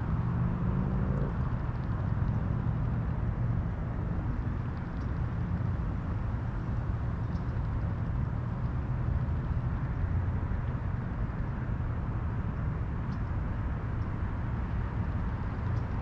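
Steady low rumble of distant motor traffic, with an engine hum most distinct in the first second or so.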